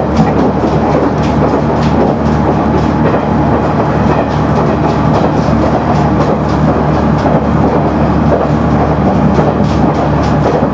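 Interior of a KiHa 100 diesel railcar under way: a steady low diesel engine drone and running noise, with the wheels clicking over rail joints now and then.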